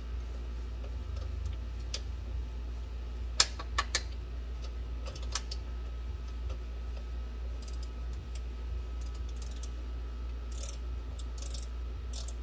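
Harbor Freight ratcheting wrench clicking as it turns a shifter bolt, with scattered sharp metallic clinks and a fast run of ratchet clicks near the end. A steady low hum runs underneath.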